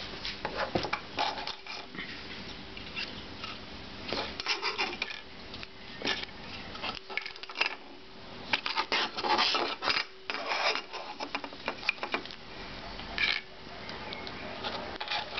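Irregular clicks, scrapes and rattles of small hard plastic and metal parts being handled: the smashed iPod's broken case and innards being picked over and pried apart by hand.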